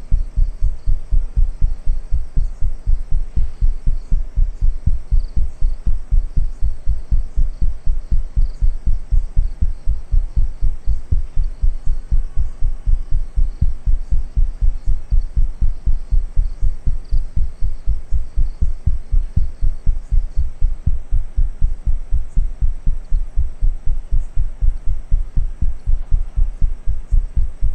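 Heartbeat sound effect: a steady train of evenly spaced low thumps, the kind laid under a scene to build suspense.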